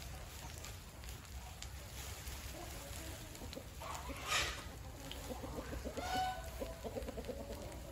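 Chickens clucking, with a louder hen call about six seconds in, and a short rustle a little past four seconds.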